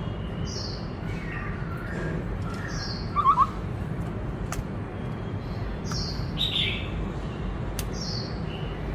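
Black-throated laughingthrush singing: short, high, falling notes repeating about every second and a half, with a louder, lower warbled phrase about three seconds in. A steady low hum runs underneath.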